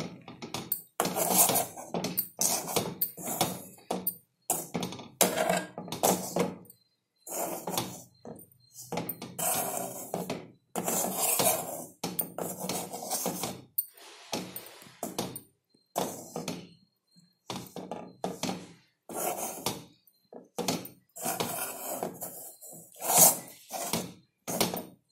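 Metal spoon scraping and knocking against a kadai in quick, irregular strokes, stirring spice powder into fried onions.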